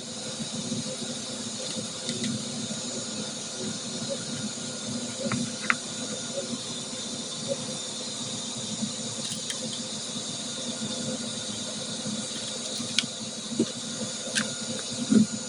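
Steady high-pitched whine over a constant hiss, the kind of gas-turbine engine sound that an RC tank's sound module plays through a small speaker, with a few faint clicks.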